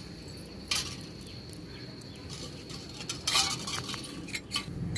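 Light taps and clinks on a stainless steel plate as leaves and fingers are set down on it, with a few sharper clicks, the loudest about a second in and just past three seconds.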